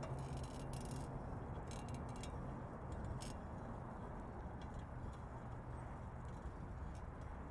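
Steady road and engine noise inside a moving car, with a few faint clicks in the first few seconds.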